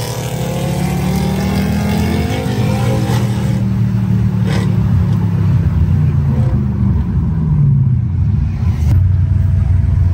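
Mercedes C-Class sedan engine heard from inside the cabin, running at a steady cruise with light throttle changes and growing a little louder.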